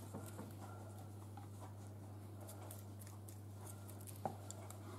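Faint scratchy dabbing of a pastry brush spreading oil dressing over raw prawns in a glass baking dish, with one sharper click about four seconds in, over a steady low hum.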